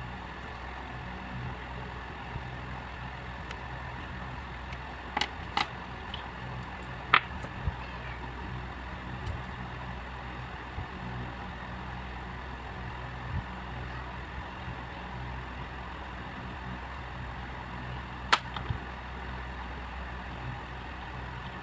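Steady low mechanical hum with faint steady tones above it, broken by a few sharp clicks, the loudest about seven seconds in.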